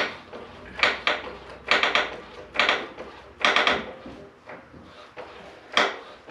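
Long-handled floor jack being pumped to raise the front of a truck frame: a metallic stroke clanks about once a second, four times in a row, then after a short pause once more.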